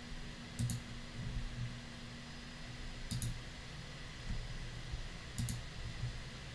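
Three faint double clicks, about two and a half seconds apart, over a low steady hum.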